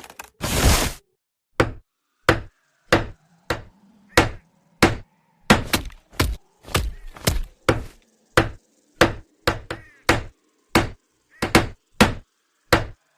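A long run of hard whacking blows, one or two a second and kept up steadily, with a short rush of noise just after the start.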